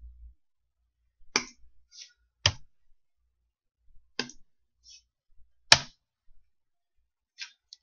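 Computer mouse and keyboard clicks: about seven sharp, separate clicks at an uneven pace, the loudest near the end, as cells are selected and a formula is typed.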